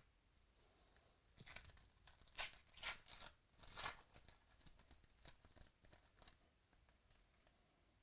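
A 2018 Donruss baseball card pack's foil wrapper being torn open by hand: several sharp rips between about one and four seconds in, then softer crinkling of the foil until about six seconds in.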